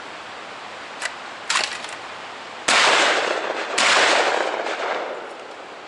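Two 12-gauge shotgun shots fired at a skeet clay about a second apart, each a sudden loud blast with a long fading echo. Two fainter clicks come before them.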